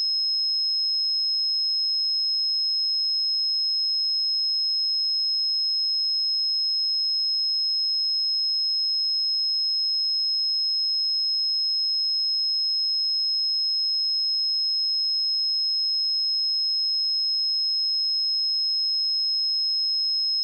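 A pure 5153 Hz sine-wave test tone: one steady, high-pitched whistle held at constant pitch and level throughout.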